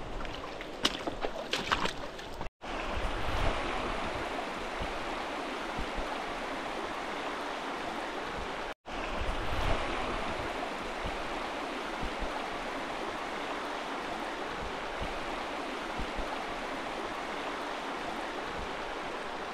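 Water rushing steadily down a cascading stream. There are a few sharp taps in the first two seconds, and the sound drops out for an instant twice, about two and a half and nine seconds in.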